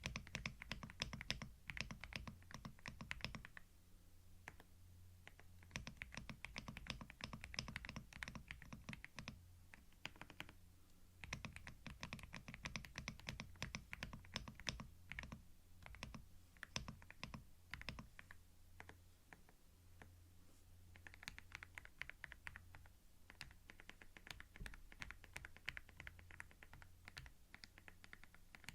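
Computer keyboard typing, recorded close on a binaural microphone: quick runs of keystroke clicks broken by short pauses of a second or two.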